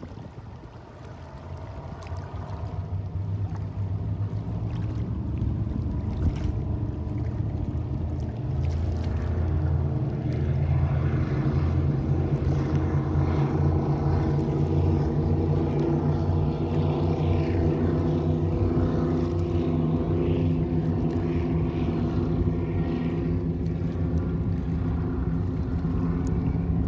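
Powerboat engine rumble, a steady low hum that builds over the first ten seconds or so and then runs evenly.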